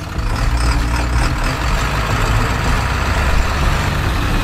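Ford F-250 Super Duty pickup's engine running steadily as it rolls past slowly in traffic, a low rumble over road noise.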